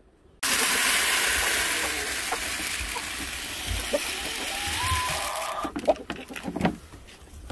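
Chicken feed poured from a scoop into a plastic hanging feeder: a loud rushing hiss of grain that starts suddenly and slowly thins to a trickle, with scattered clicks near the end and a brief rising call partway through.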